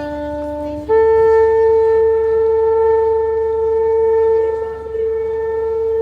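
Shofar blown in one long blast: a lower note that jumps up to a higher one about a second in, then held steadily.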